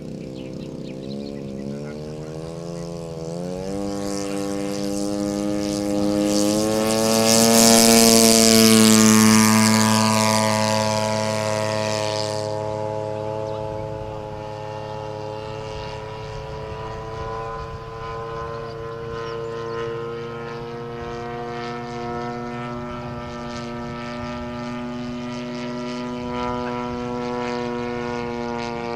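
Large radio-controlled AT-6 Texan scale model airplane's engine and propeller: the engine throttles up with rising pitch over the first few seconds for the takeoff run, is loudest as the plane passes close about eight seconds in, then drones steadily in flight.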